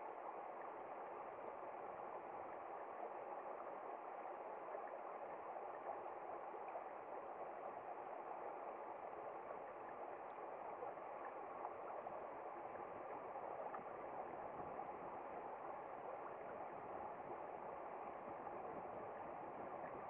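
Shallow stream running over pebbles and stones, a faint, steady burbling wash of water.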